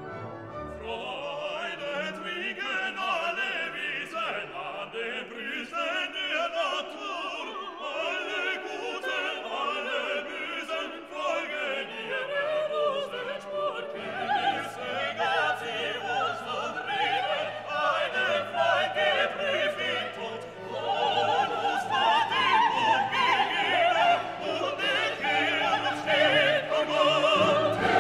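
Classical music: an operatic voice singing with vibrato over an orchestra, growing louder about three quarters of the way through.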